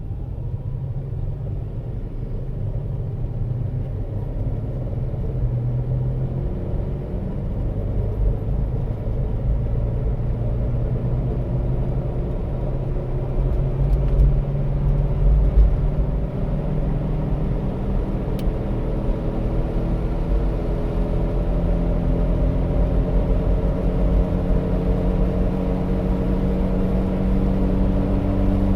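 1995 Jeep Grand Cherokee (ZJ) driving at highway speed: a buzzing drone over low road rumble, its pitch and loudness climbing slowly as the vehicle gains speed.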